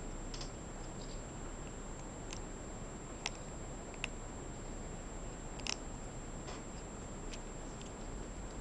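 Kitten eating dry kibble from a bowl: irregular sharp little clicks and crunches, about one a second, over a steady hiss.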